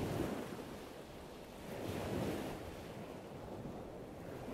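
A rushing, surf-like wash of noise that swells and fades, loudest near the start and again about two seconds in, like waves breaking on a shore.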